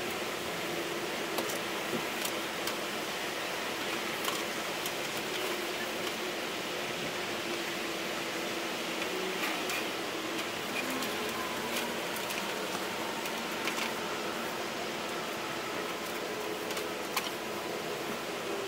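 Steady background hiss and hum, with a few faint scattered clicks and taps from gloved hands pressing and smoothing wet fiberglass cloth onto plywood.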